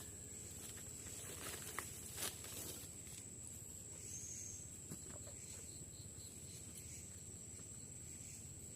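A steady high-pitched insect trill in the forest, unbroken throughout, with a few light knocks and rustles in the first half.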